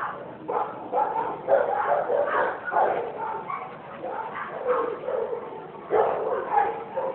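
A dog barking and yipping over and over in quick, excited calls.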